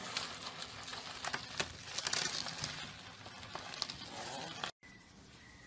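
Green bubble-plastic sleeve crinkling and rustling in irregular crackles as a small animal trapped inside it thrashes on a carpet; the sound cuts off suddenly near the end.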